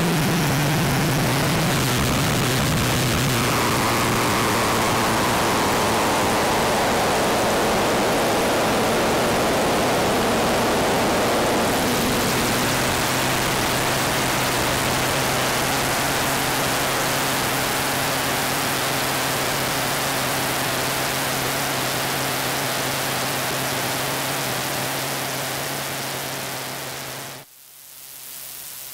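Patchable four-oscillator drone synth putting out a harsh, dense noise drone over a steady low hum. A band of noise slides down in pitch over the first dozen seconds, then the drone holds steady and drops suddenly to a quieter level shortly before the end.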